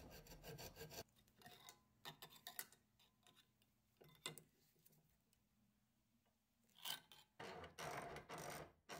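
Faint hacksaw strokes cutting through a copper pipe held in a steel vise, stopping about a second in. Scattered short scrapes and clicks of tools on the cut copper follow, and near the end comes a longer rasping scrape lasting over a second.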